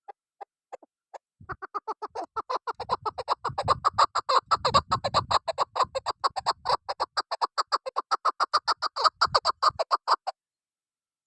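Chukar partridge calling: a long run of short, rapidly repeated clucking notes. It begins with a few scattered notes, settles into a fast steady series about a second and a half in, and cuts off abruptly near the end.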